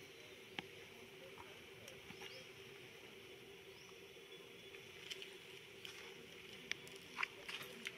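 Faint steady hum and hiss with scattered small sharp clicks, one about half a second in and several close together near the end, as a baby macaque chews bits of food.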